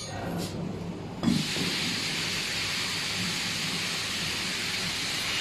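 Automatic frame moulding cutting machine running with a steady low hum; about a second in, a knock, then a loud, even hiss that holds steady.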